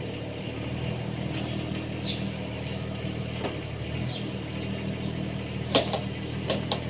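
Lovol FR18E2-U mini excavator's diesel engine running at a steady idle while the dozer blade is raised, with a few sharp knocks from the machine near the end.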